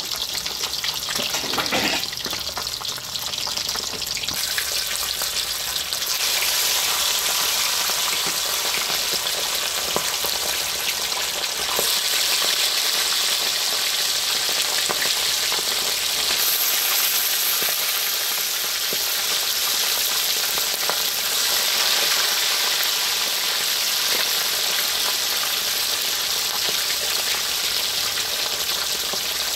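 Pieces of salted silver barb deep-frying in hot oil in a wok: a steady, dense sizzle that grows louder and brighter about five seconds in. There are a few light clicks in the first two seconds.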